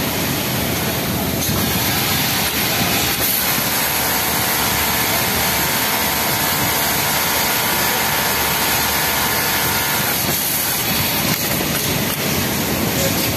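Yamato flatlock industrial sewing machine running at speed as it stitches a t-shirt hem, a steady whine from about three seconds in to about ten seconds in. Constant loud hiss of machinery from the sewing floor underneath.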